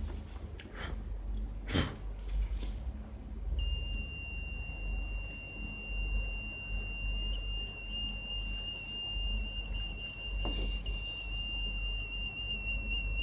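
Home-built four-transistor ion chamber smoke detector sounding its alarm, a steady high-pitched tone that starts about three and a half seconds in, set off by smoke from a burning tissue. A sharp click comes shortly before it.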